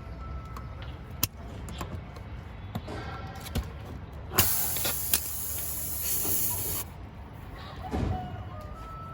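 A hiss of air lasting about two and a half seconds, starting about four seconds in, as in work on a punctured tyre. A few sharp knocks come before it, over a low steady rumble.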